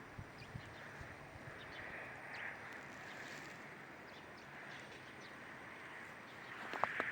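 Faint outdoor ambience: a steady hiss with scattered light ticks, then several sharp clicks near the end.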